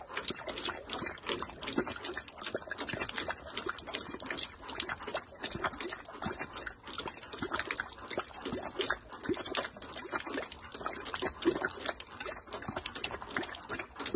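Water jetting from a hull outlet and splashing onto the ground below, pumped out by a Whale Gulper 220 shower drain pump, with an irregular choppy rhythm to the flow. The jet from the skin fitting shows the pump discharging properly.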